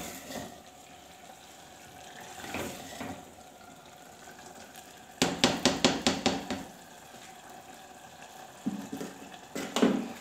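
Spoon and spatula stirring spinach and potatoes in an earthenware matka on a gas flame, scraping and knocking against the clay pot, with a quick run of sharp strokes about halfway through. Behind it a steady low hiss of the cooking.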